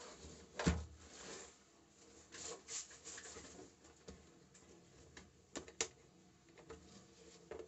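Hard plastic drill carry case being handled on a table: a thump about a second in as it is set down, rubbing and scraping of the plastic, then two sharp clicks close together near the end as its snap latches are worked open.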